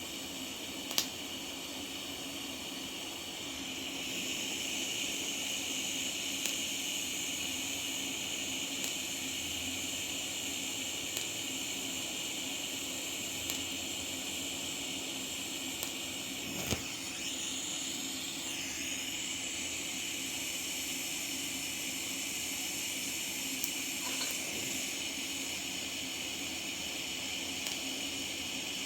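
TIG welder running with a steady hiss that gets louder about four seconds in and holds, broken by a few sharp clicks.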